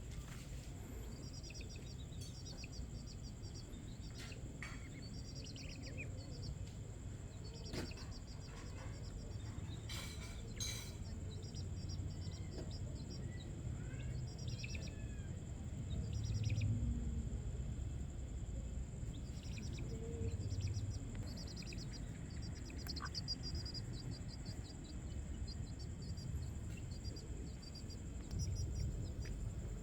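Night-time outdoor ambience: a steady high insect drone with repeated bursts of rapid chirping trills, like crickets. A few short gliding chirps come around the middle, a few sharp clicks sound early on, and a low rumble of background noise runs underneath.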